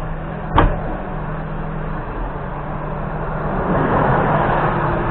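JCB 3CX backhoe loader's diesel engine running steadily, with one sharp knock about half a second in and the noise swelling near the end.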